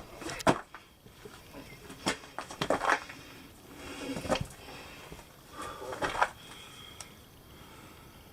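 Irregular scuffs, knocks and rustles of a person moving about inside a small rocky cave, in four short clusters over the first six seconds, then quieter.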